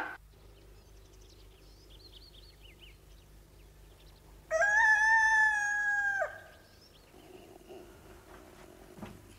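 A rooster crows once, a single long call lasting just under two seconds, starting about four and a half seconds in. Faint chirping of small birds comes before it.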